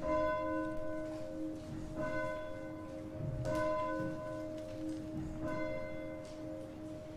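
Church bell tolling: a single bell struck about every two seconds, four strokes, each ringing on into the next.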